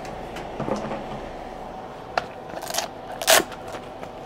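Handling noises: a few soft clicks and two short rustling scrapes, the louder one about three seconds in, over a faint steady hum.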